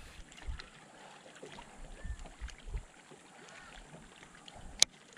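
Water lapping against a small fishing boat, with irregular low thumps and faint scattered clicks. One sharp click about five seconds in is the loudest sound.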